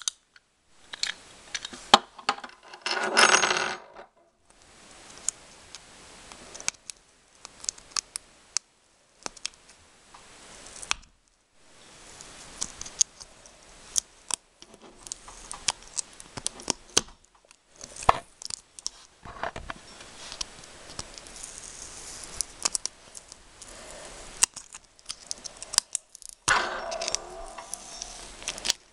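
Hands handling the parts of a Beyblade Thermal Pisces top and its packaging: scattered sharp clicks and clinks of small hard parts, with louder bursts of rustling about three seconds in and again near the end.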